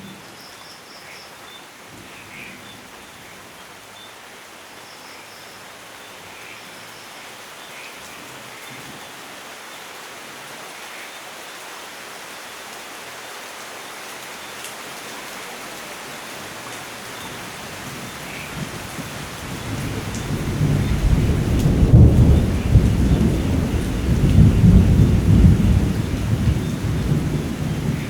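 Steady rain falling, with a long rumble of thunder that builds about two-thirds of the way in and is loudest near the end.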